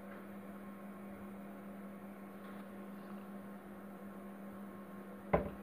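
Steady electrical hum with faint hiss, the background noise of the recording, and a single sharp click near the end.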